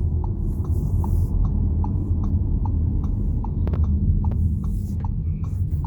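Car cabin noise: a steady low engine and road rumble, with the turn signal ticking evenly at about two and a half clicks a second.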